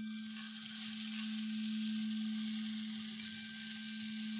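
A rainstick being tipped upright, a steady rushing hiss of its filling pouring down the tube, over the steady low hum of a crystal singing bowl rubbed with a wand. Fainter, higher ringing tones join about three seconds in.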